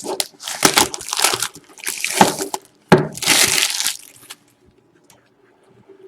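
Packaging of a trading-card box crinkling and rustling as the box is opened, in several noisy bursts over the first four seconds, then near quiet.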